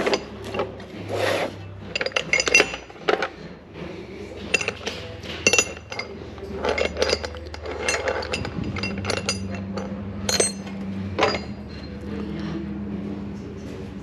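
Metal hand tools clinking and knocking as they are handled and shifted about, in many scattered sharp strikes over a steady low hum. A steady low tone joins the hum about halfway through.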